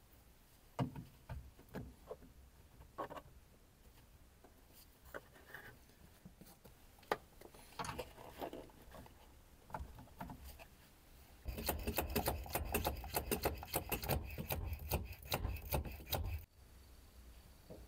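Hand-handling clicks and knocks of hard plastic as a pressure-bleeder adapter cap is fitted and screwed onto a brake fluid reservoir. Near the end comes about five seconds of dense, rapid clicking and rattling while the pressure bleeder is handled, which cuts off abruptly.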